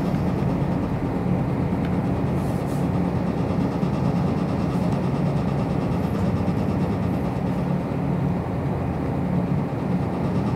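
Inside a JR Hokkaido KiHa 54 diesel railcar: its diesel engine running steadily with rolling noise as the train draws slowly into a station.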